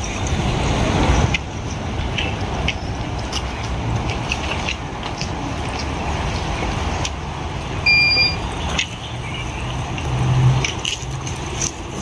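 Strong wind buffeting the microphone on a beach: a rough, continuous rumble and rush that swells and eases in gusts.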